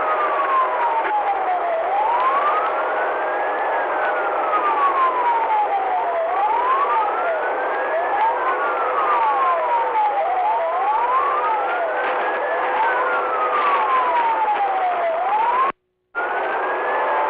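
Police car siren in wail mode, heard from inside the pursuing cruiser over road noise, sweeping slowly up and down about every four and a half seconds, with a fainter second wail out of step with it. The sound cuts out briefly near the end.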